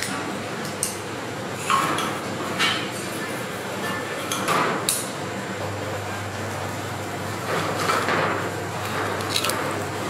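Metal cooking utensils knocking and clinking against a steel teppanyaki griddle and ceramic plates: several separate short knocks, over a steady low hum.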